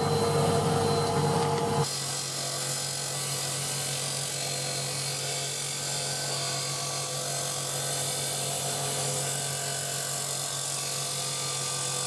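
Water-cooled stone-cutting saw running with a steady motor hum while a hand-held stone is fed into the blade, giving a steady grinding hiss. The sound changes abruptly about two seconds in.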